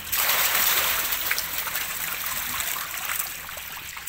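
A dip net full of live catfish tipped into a crowded tank: a sudden rush of splashing and pouring water, loudest for about the first second, then lighter splashing and trickling from the thrashing fish that fades away.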